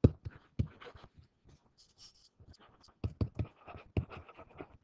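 Stylus writing on a digital writing surface: a run of irregular taps and short scratchy strokes. It thins out briefly about a second and a half in and picks up again after about three seconds.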